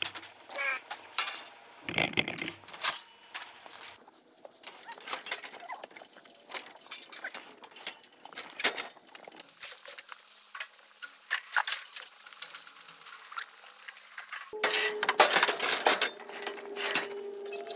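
Steel sheep sorting chute and its sort gate clinking and rattling as ewes are pushed through it, with many sharp metal knocks. The clatter gets denser and louder near the end, joined by a steady tone.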